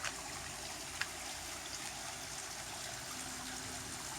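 Recirculating garden stream trickling steadily over rocks, with two short clicks at the start and about a second in.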